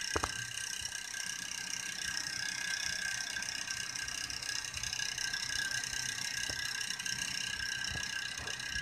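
Steady mechanical whirring with a whine of several high, unchanging tones, like a small motor or fan running. A short knock comes just after the start, and faint clicks come later.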